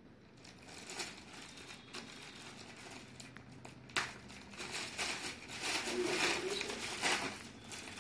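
Rustling and crinkling of a folded suit fabric being handled and spread out, with one sharp click about four seconds in. The rustling grows louder from about five seconds.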